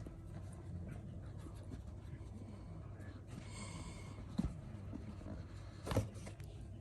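Faint handling of an iPad box and its packaging while it is opened: soft rustling and scraping, with two small knocks about four and a half and six seconds in.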